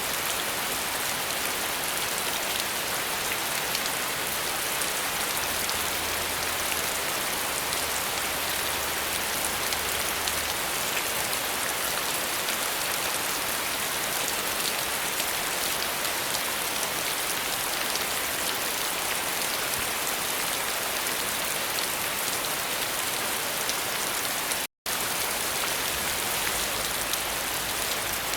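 Steady rain falling, a dense even hiss of many drops. It cuts out completely for an instant near the end, then carries on unchanged.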